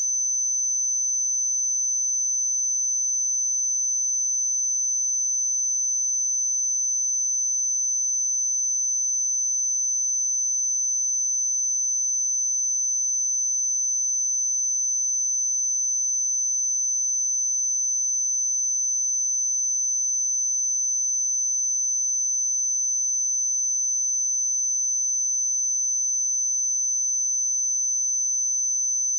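A pure 6106 Hz sine-wave test tone: one high, steady whistle at constant pitch and level, with no other sound.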